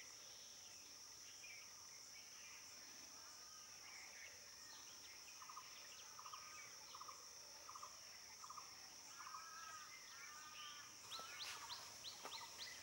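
Faint forest ambience: a steady high-pitched insect drone under scattered bird calls. Midway a short note repeats several times, and near the end comes a burst of quick rising chirps.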